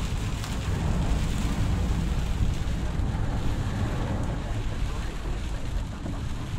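Heavy rain pattering on a car's roof and windshield, heard from inside the moving car's cabin over steady road and engine noise.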